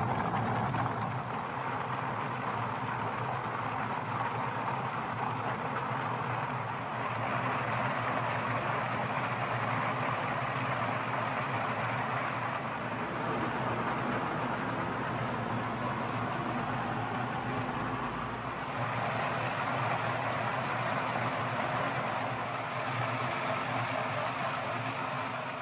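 Kadıoğlu CKS130D walnut hulling machine running: a steady motor hum under the wash of walnuts tumbling and rubbing against the spinning perforated stainless drum in water spray jets, stripping the green husks off the nuts.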